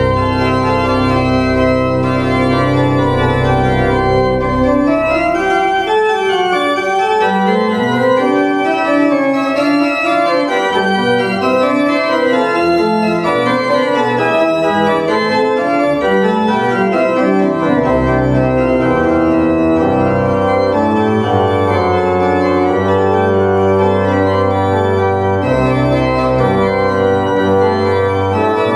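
Organ playing slow, sustained chords as the prelude to a church service. The deep pedal bass drops out about five seconds in and comes back at about eighteen seconds.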